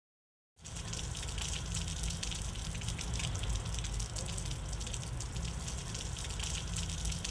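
Water running off a roof edge and splashing onto wet paving: a steady rushing splash with a low rumble underneath, starting suddenly about half a second in.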